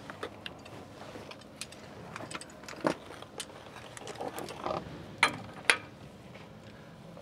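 Scattered metallic clicks and clinks of hand tools being handled at a differential's pinion, with two sharper clanks a little after five seconds in.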